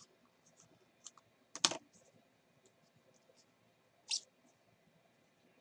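Trading cards and their cardboard pack being handled: a few light clicks, with a sharper snap about a second and a half in, and a short scrape near four seconds as the cards slide out of the sleeve.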